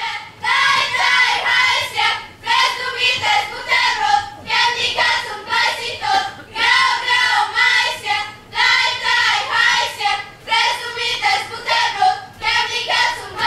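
A group of children singing a song without accompaniment, in short phrases with brief breaks between them.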